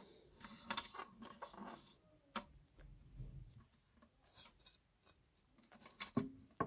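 Faint clicks, taps and scraping of small speaker parts being handled by hand, with a sharper click about two and a half seconds in and a few more near the end.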